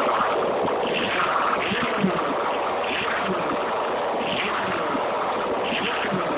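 Honda CBR600's inline-four engine running steadily with no exhaust pipes fitted, a dense open-port noise.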